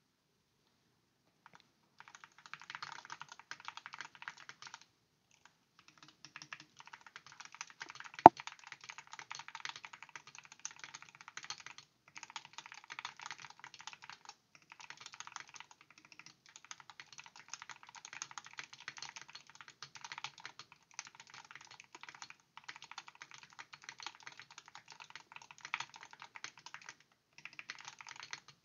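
Fast continuous typing on a stock gaming keyboard, a dense clatter of keystrokes with a few short pauses. One much louder sharp click stands out about a third of the way in.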